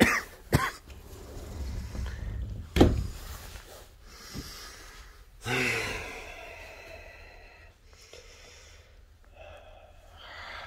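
A man coughing: sharp coughs at the start and again about three seconds in, with another burst around five and a half seconds.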